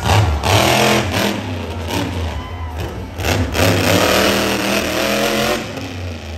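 Monster truck engine revving hard, the pitch and loudness rising and falling several times.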